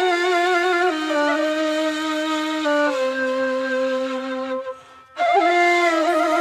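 Background music: a solo woodwind playing a slow, descending melody of long held notes with vibrato. The line stops for a breath about five seconds in, then a new phrase begins.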